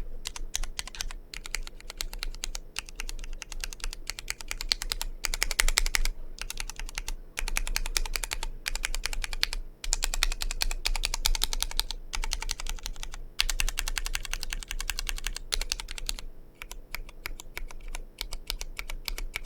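Fast, continuous typing on a Vortex POK3R 60% mechanical keyboard with Cherry MX RGB Red linear switches, a dense clatter of keystrokes broken by a few short pauses.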